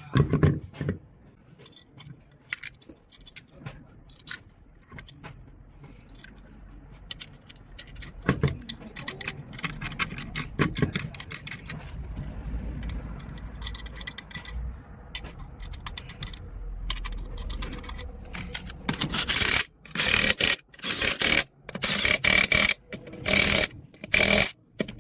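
Metal clinking and scraping as a steel-rimmed wheel is fitted onto a three-wheeler's hub, with a run of short, loud rattling bursts in the last five seconds or so.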